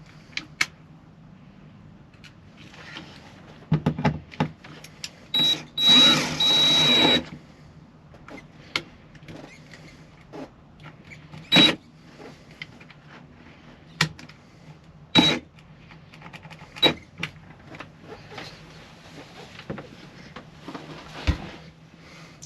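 Hand work on van wiring: scattered sharp clicks and knocks of tools, connectors and wires being handled, with a louder rasping burst lasting about a second and a half a little over five seconds in, over a faint steady low hum.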